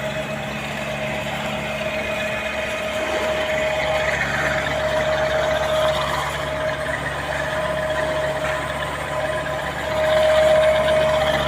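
Machinery running steadily, a constant hum with a steady whine over it, growing a little louder about ten seconds in.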